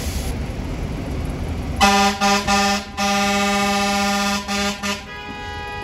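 Pierce fire engine's air horn sounding over a low engine and traffic rumble: a few short blasts, then a long blast of about a second and a half, then two more short blasts and a softer held tone near the end.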